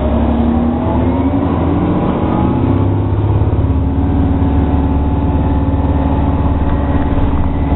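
Orion VII NG hybrid-electric city bus heard from inside its cabin while driving: the drivetrain's pitched hum rises over the first couple of seconds, then holds steady.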